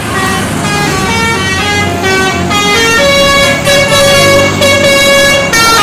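Multi-tone musical vehicle horn playing a tune, its notes stepping up and down every fraction of a second, with one note held for about two and a half seconds in the second half, over a low traffic rumble.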